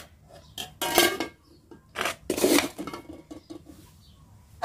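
Metal serving spoon knocking and scraping against stainless steel plates and a steel pot as rice is dished out: a handful of separate clinks and scrapes, mostly in the first three seconds.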